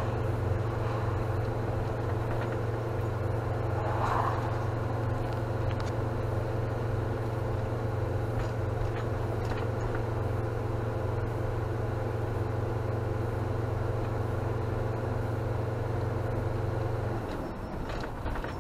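A motorhome's engine and road noise heard from inside the cab while driving: a steady low drone. The engine note drops away about a second before the end.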